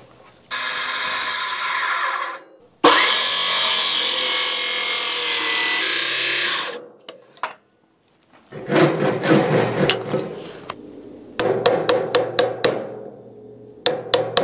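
Circular saw cutting a bird's mouth notch into a wooden rafter in two steady passes, the second the longer. Then a few seconds of scraping in the notch, and a chisel driven by quick light hammer taps to clear out the cut, in two short runs near the end.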